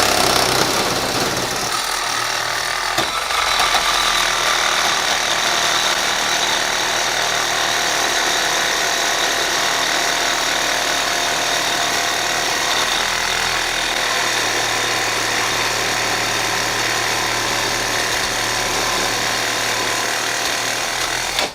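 Makita CXT 12-volt cordless reciprocating saw running steadily under load as its blade cuts through thick aluminum. It cuts off suddenly near the end.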